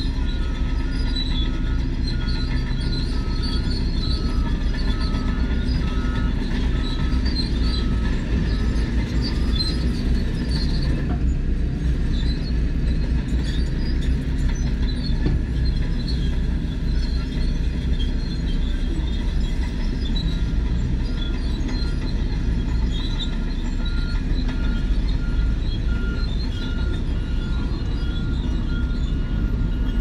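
Heavy diesel earthmoving machinery running steadily, led by a Shantui crawler bulldozer's engine with the clatter and squeal of its steel tracks. A repeating high beep sounds in the first few seconds and again near the end.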